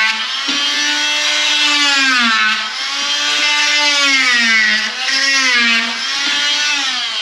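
Roto Zip rotary cutting tool running at high speed while cutting away sheetrock that overhangs a door frame, its high whine dipping and recovering in pitch over and over as the bit loads up in the drywall. It eases off near the end.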